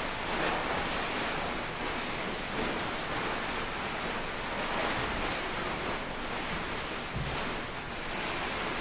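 Large crinkly tarp-like sheets rustling and shifting in waves of noise as bodies move beneath them, with a soft low thump about seven seconds in.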